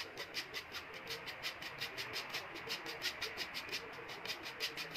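Cocoa powder being sifted through a plastic-rimmed mesh sieve, the sieve worked by hand: a fast, even ticking, about eight a second, light and high-pitched.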